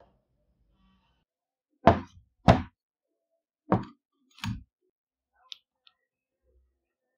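Four knocks of carbide wood-carving grinder discs being set down and handled on a wooden worktop, two close together about two seconds in and two more about four seconds in, followed by two faint clicks.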